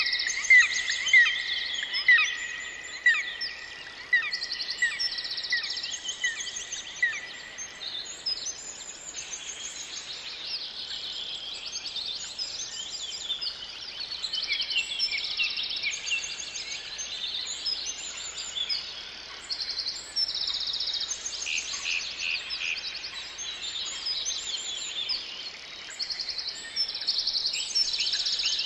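Forest birdsong: many birds singing at once in a dense, overlapping chorus of high chirps and trills. For the first several seconds one nearer bird repeats a loud short note over and over, about once a second, then drops out.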